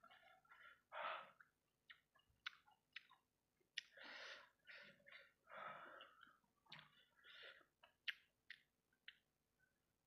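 A person eating sambal-coated fried rice balls close to the microphone: irregular chewing and wet mouth sounds, broken by many sharp lip-smacking clicks.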